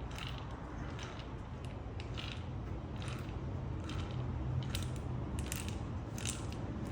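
Geared e-bike hub motor being spun by hand to work freshly applied synthetic grease through its gears. The gears turn with irregular light clicks and ticks.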